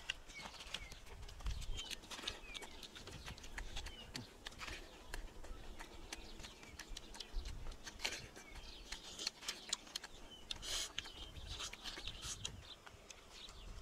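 Small birds chirping in short calls, over scattered crisp clicks and crunches of fruit being bitten and chewed.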